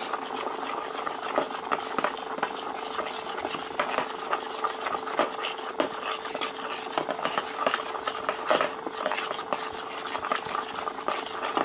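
A spoon stirring thick coating batter in a plastic bowl: a steady scraping and rubbing with many small clicks as it knocks the sides. A faint steady hum lies underneath.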